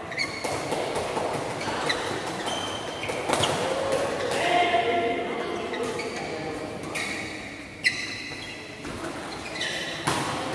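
Badminton doubles rally: sharp pops of rackets striking the shuttlecock every second or two, the sharpest just before the end, with short high squeaks of court shoes on the mat and voices in the background.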